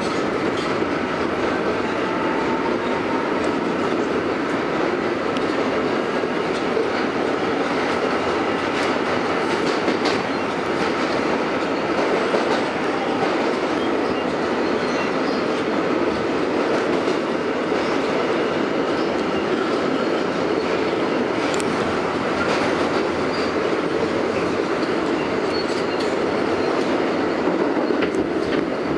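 R142A subway car heard from inside, running at speed through a tunnel: a steady rumble of wheels on rail, with a few sharp clacks over rail joints.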